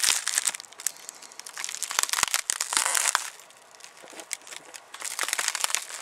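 A burnt, cracked laptop LCD panel being handled and pulled apart with rubber gloves: its plastic film sheets crinkle and crackle, with sharp clicks of broken glass, in three bouts with a quieter stretch in the middle.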